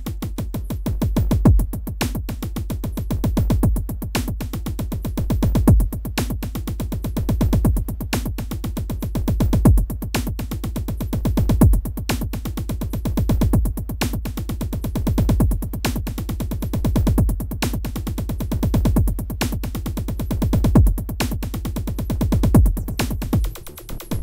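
Electronic music made with Dilithium in Native Instruments Reaktor: a fast, steady pulse over heavy bass, with a louder swell about every two seconds. The bass drops out briefly near the end.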